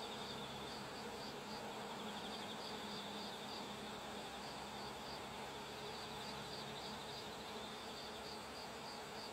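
Insects chirping in short repeated pulses, pausing now and then, over a fainter steady trill and a soft outdoor hiss.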